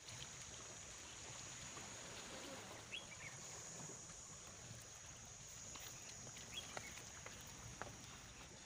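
Faint outdoor ambience: a steady high-pitched hiss, with a few short chirps about three seconds in and again past six seconds.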